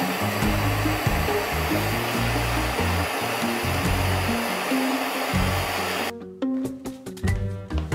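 Handheld gas torch flame hissing steadily while it heats a brass-and-copper pipe fitting for soldering, cutting off suddenly about six seconds in. Background music with plucked low notes runs underneath and carries on alone after the hiss stops.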